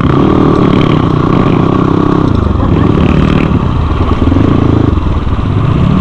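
Crossfire 250 dirt bike engine running while riding, the revs dropping and climbing again several times.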